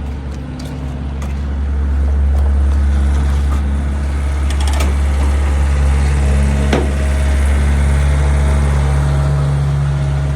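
Heavy diesel engine running steadily with a deep rumble, slightly louder from about two seconds in, with a few short metallic clicks near the middle.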